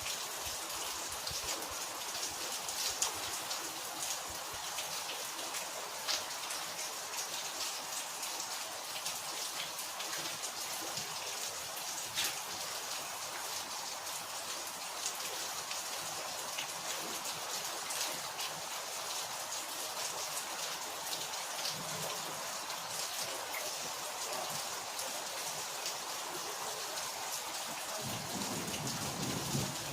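Steady rain falling on a hard surface: an even hiss with individual drop hits ticking out of it here and there.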